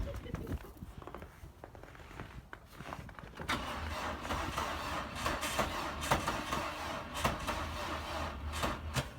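A car that will not start being tried again: from about three and a half seconds in, a steady noise with many small clicks runs for about five seconds, and the engine does not catch. The owner puts the failure down to a discharged battery.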